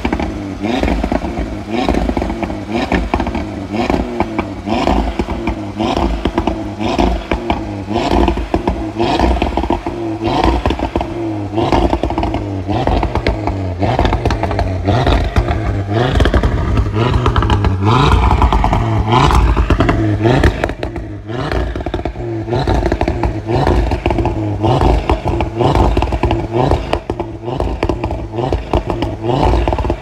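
Audi RS3's 2.5-litre turbocharged five-cylinder with RS sport exhaust, revved repeatedly while parked in short blips, with one longer, higher rev about eighteen seconds in.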